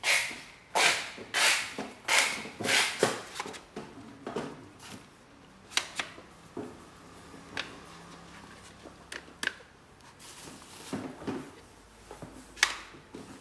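Bamboo planter stand's wooden legs and slats knocking and clacking together as it is handled and turned over: a quick run of sharp knocks at first, then a few single clicks spread apart.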